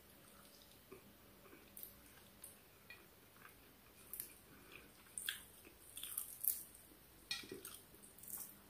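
Faint close-up chewing of a person eating tilapia and rice by hand, with scattered short clicks that come more often from about four seconds in.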